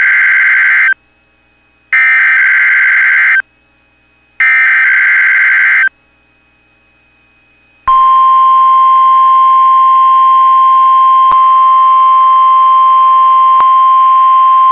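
Emergency Alert System SAME header on NOAA Weather Radio: three harsh, buzzy digital data bursts, each a little over a second long with about a second between them. About eight seconds in, the steady 1050 Hz weather-radio warning alarm tone starts and holds, signalling that a tornado warning (here a test) is about to be read.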